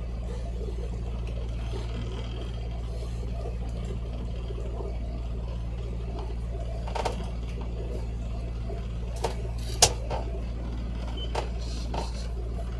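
A boat's engine running steadily with a low drone, with a few sharp knocks over it, the loudest about ten seconds in.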